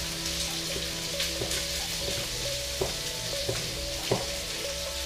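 Chicken breast frying in a pan, a steady sizzle, with a few sharp taps of a chef's knife on a wooden cutting board as fresh oregano is chopped in the second half.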